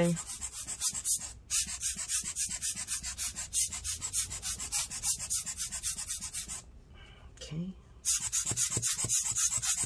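Toothbrush bristles scrubbing back and forth over a laptop circuit board, in rapid strokes about five a second, cleaning off liquid-damage corrosion. The strokes break off briefly about a second and a half in, and again for over a second near the end.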